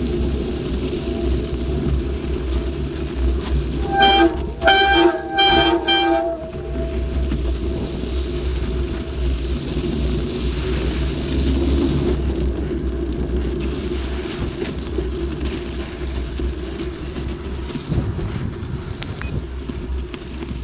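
Wind on the microphone and tyre noise from a mountain bike riding along a snowy lane. About four seconds in there are four short, loud, high-pitched blasts in quick succession, like a horn or a whistle.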